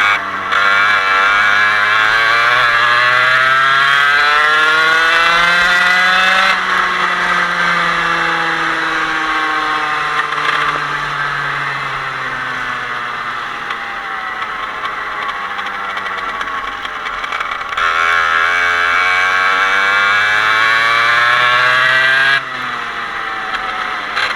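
Racing kart's two-stroke engine at full throttle, revs climbing for several seconds. It then comes off the throttle and the revs fall away slowly, before climbing again and cutting off abruptly near the end.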